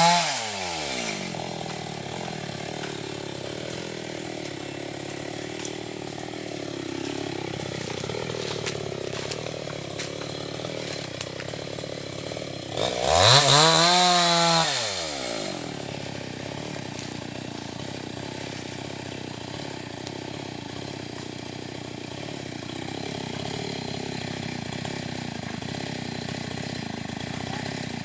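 Chainsaw engine running steadily at low speed, revved up once about halfway through, its pitch climbing and falling back before it settles again.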